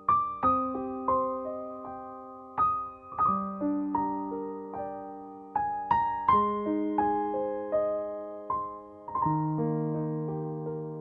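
Slow, calm solo piano music: single notes and chords struck every second or so and left to ring out and fade.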